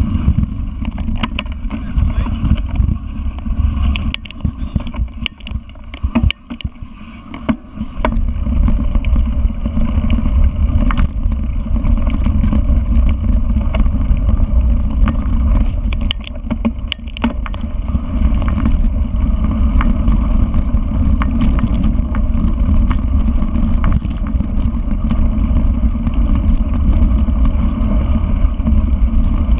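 Mountain bike ridden fast over a rough dirt trail: wind rushing over the camera's microphone with a steady low rumble, and frequent knocks and rattles from the bike going over bumps. The rumble eases for a few seconds around six seconds in, then picks up again.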